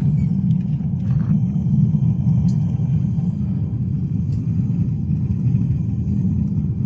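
Foundry furnace burner running with a steady low rumble.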